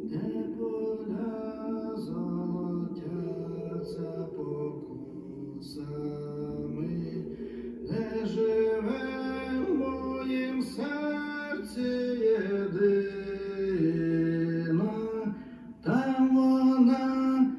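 Music: the opening of a song, with long sustained sung notes that grow fuller about halfway through.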